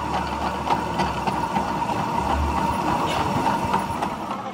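Metal lathe running while a large twist drill bores into a spinning steel workpiece: a steady machine hum with a thin whine and many small scattered ticks of cutting.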